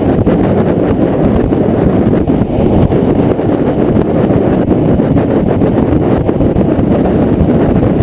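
Steady wind buffeting the microphone aboard a small motorboat underway, over the low rumble of the boat's motor and hull.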